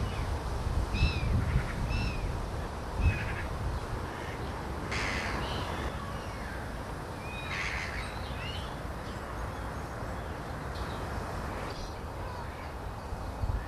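Birds giving short, harsh calls, singly or in quick pairs, over a steady low rumble that is loudest at the start.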